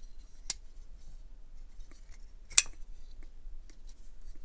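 Two sharp metallic clicks about two seconds apart, the second louder, with a few faint ticks between, from handling the EMP EDC Nymble v3 pocket knife.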